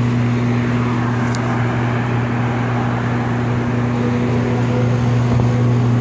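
York packaged rooftop air-conditioning unit running with a steady low hum.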